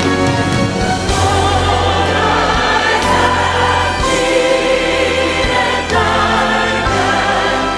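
Gospel-style music with a group of voices singing over a steady bass line.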